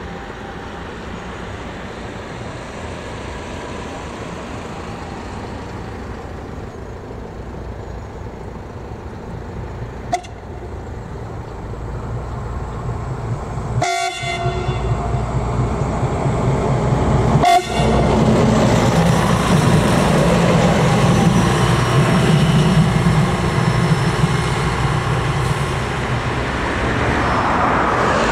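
ČD RegioSpider diesel railcar approaching a level crossing, its running growing steadily louder through the second half, with its horn sounding. Steady background noise before it.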